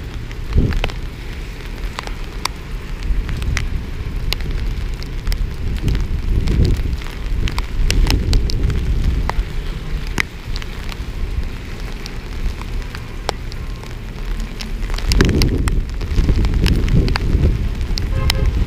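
Heavy rain, with many sharp ticks of raindrops striking the camera. Under the ticks runs a low rumble of wind on the microphone and cars on the wet street, which swells twice.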